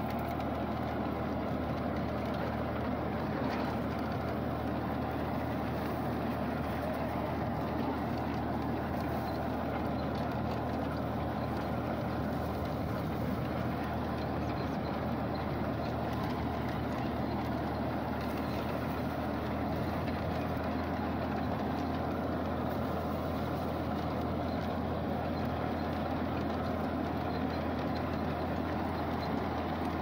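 Tractor engine running steadily as it pulls a potato digger, together with the rattle of the digger's rod-chain elevator sifting soil and potatoes.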